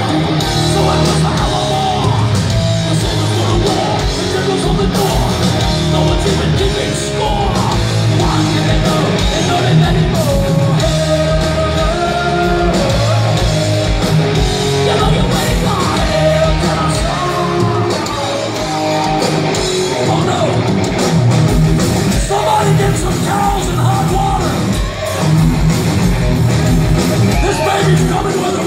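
Heavy metal band playing live and loud, with distorted guitars, bass, pounding drums and shouted, growled vocals, heard from the crowd in a concert hall.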